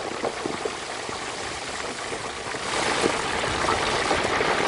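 Hot canola oil frying a whole turkey in a deep fryer pot: a steady bubbling hiss with scattered small crackles, growing louder about two-thirds of the way in.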